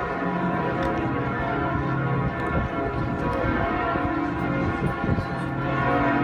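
Notre-Dame cathedral's bells pealing: several large church bells ringing together in a continuous, overlapping clangour of deep and higher tones.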